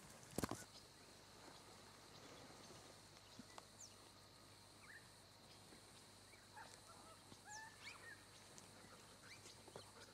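A single sharp knock about half a second in, then faint, scattered bird chirps and short whistles over quiet bush ambience.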